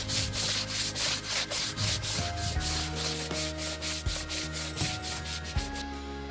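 Hand-held tyre brush scrubbing the wet rubber of a telehandler's lugged tyre in brisk back-and-forth strokes, about four a second, stopping near the end.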